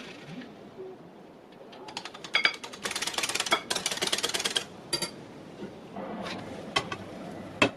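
Fork beating eggs in a bowl: a fast, dense run of clicking for about two seconds in the middle, with a few scattered taps before and after. A couple of single sharp knocks come near the end.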